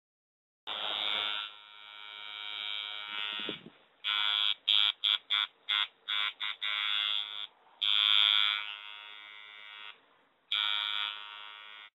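Harsh electric buzz with several tones at once, starting about half a second in and sweeping down in pitch briefly before the fourth second. It is then chopped into quick stutters of about three a second, followed by two more long buzzes that cut off abruptly near the end.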